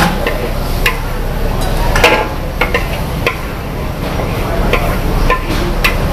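Metal ladle clanking and scraping against a wok as fried noodles are stir-fried: irregular sharp clanks, the loudest about two seconds in, over a steady low rumble.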